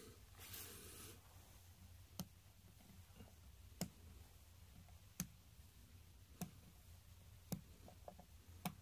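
Six small sharp clicks, about one every second and a bit, starting about two seconds in: the Marushin gas revolver's metal cartridges being handled one at a time as BB pellets are loaded into them, on a wooden tabletop.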